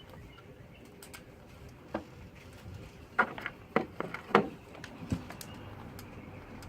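Scattered clicks and knocks from handling engine parts and a wiring harness, with a brief cluster of sharper clicks about three to four and a half seconds in.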